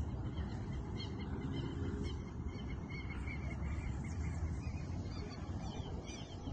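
Strong wind buffeting the microphone in a steady low rumble, with faint short high chirps over it.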